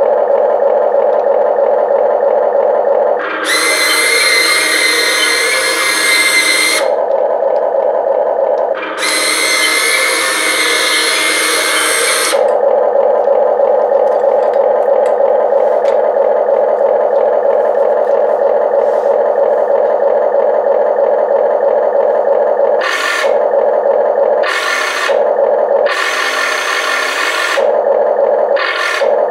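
Simulated diesel engine sound from the Amewi 22501 RC excavator's sound module, running steadily. It is broken by loud whirring, hissing bursts as the boom and bucket are driven: two long ones a few seconds in and around ten seconds, and several short ones near the end.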